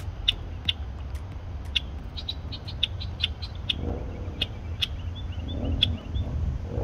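Male red-winged blackbird giving repeated short, sharp alarm chips, two or three a second, coming faster for a couple of seconds in the middle: the call of a male defending its nesting area.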